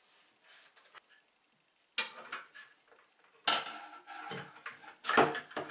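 Metal clinks and knocks from handling a shower riser rail, its wall brackets and a screwdriver and Allen key against the tiles. It is nearly quiet at first, then a run of sharp clinks with short ringing starts about two seconds in, the loudest about three and a half and five seconds in.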